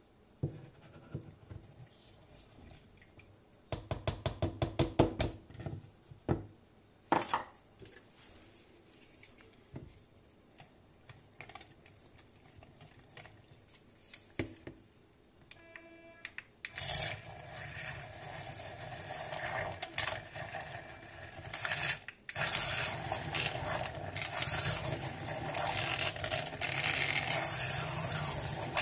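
Handheld rechargeable mini mixer whisking a mixture in a plastic jug, running steadily from about halfway through, cutting out for a moment and starting again. Before it, light clicks and a quick run of taps from handling the jug and mixer.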